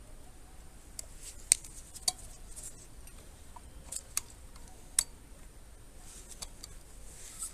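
Small metal parts and tools clinking against each other as a motorcycle rear hub is worked on with hand tools: about six sharp, irregular clinks.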